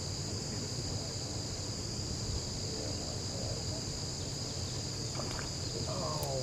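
A steady, high-pitched insect chorus keeps up an unbroken buzz in two pitch bands, over a low steady rumble.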